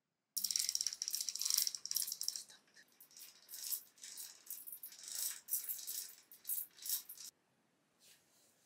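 Metal bead chain of a window shade rattling as it is pulled hand over hand to raise the shade. The rapid, uneven rattle starts just after the beginning and stops abruptly about seven seconds in.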